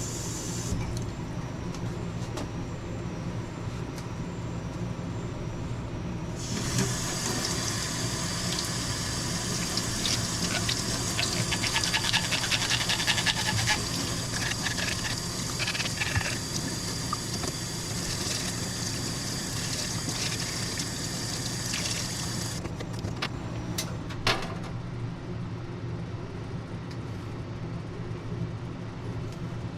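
Water running and splashing for about sixteen seconds, starting and stopping abruptly, over a steady low hum; a few sharp knocks follow near the end.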